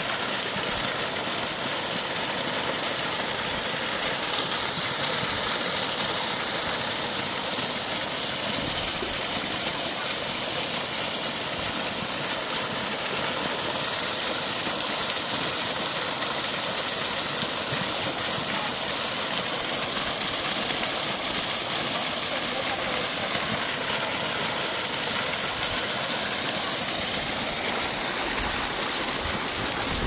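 Dreimühlen waterfall rushing steadily: an even, hissing noise of falling water that does not let up.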